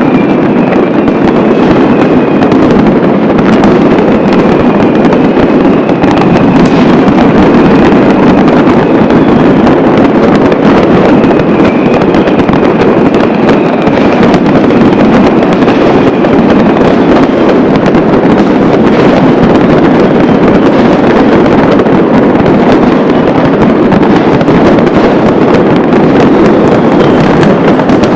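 New Year's Eve fireworks and firecrackers going off in a dense, continuous barrage, the countless bangs and crackles merging into one unbroken loud din.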